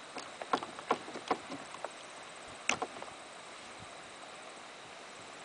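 A quick run of sharp knocks and clatters against the side of an aluminium boat as a northern pike is held at the gunwale and unhooked, with a louder pair of knocks about two and a half seconds in.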